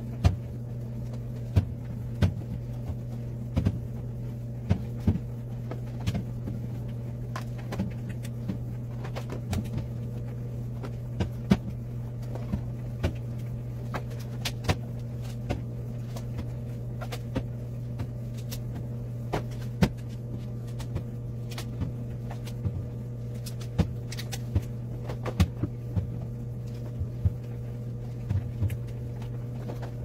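Plastic and glass drink bottles being set down and slid onto a refrigerator's glass shelves: sharp knocks and clinks every second or so, over a steady low hum.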